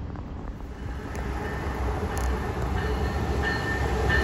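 Brightline passenger train with a Siemens Charger diesel-electric locomotive approaching, its low rumble growing steadily louder. A high-pitched squeal joins in on and off from about two and a half seconds in.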